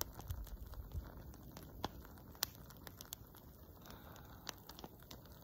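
Faint, irregular crackling and ticking from a SOL firelight fuel cube burning under a stainless steel canteen cup on its stove, the water heating but not yet boiling.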